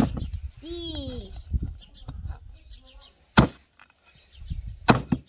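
Hatchet chopping into a goat head on a wooden chopping stump: three sharp chops, one at the start, one about three and a half seconds in and one near the end.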